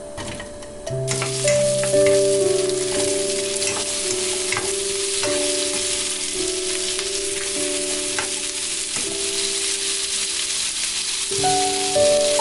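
Food sizzling as it fries in a pan, starting about a second in, with a few light clicks as it is stirred. Background music with steady tones plays throughout.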